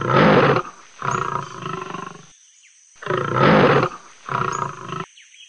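Lion roaring twice, about three seconds apart; each roar is a loud call followed by a shorter, quieter one.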